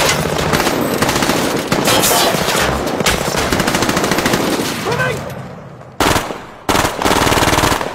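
Automatic rifle fire in a gunfight. Dense rapid fire for about five seconds fades out, followed by a short burst about six seconds in and another burst near the end.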